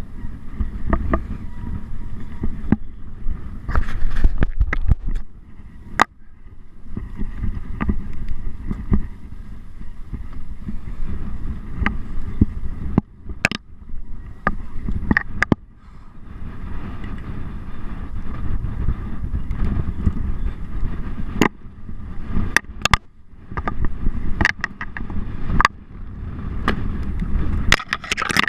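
Mountain bike being ridden over rough ground, with wind buffeting the microphone. Irregular sharp knocks and rattles come from the bike over the terrain.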